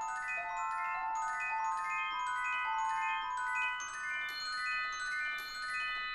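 Music: a melody of bright, ringing bell-like notes on a mallet percussion instrument, with a steady run of struck notes following one another.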